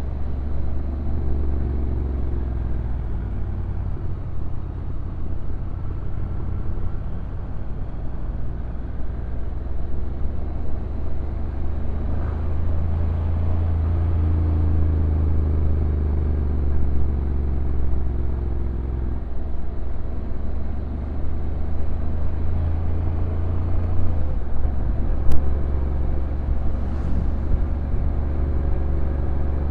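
Honda NC750X DCT motorcycle's parallel-twin engine running steadily at low revs on a downhill ride, with a road and tyre rumble under it. The engine note steps up and down a few times, and there is one sharp click about 25 seconds in.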